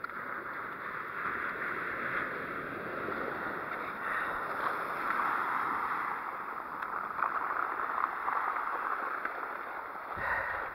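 Sea washing over a shingle shore: a steady hiss of water through pebbles, swelling and easing, with a brief low bump near the end.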